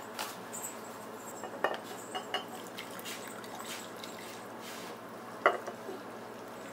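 Scattered clinks and knocks of a steel pot and a plastic tea strainer against a ceramic cup as hot herbal coffee is poured through the strainer, the loudest knock about five and a half seconds in.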